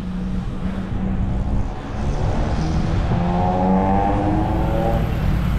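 City road traffic heard from a moving bicycle: a steady low rumble, with a motor vehicle's engine note swelling and fading about halfway through as it passes.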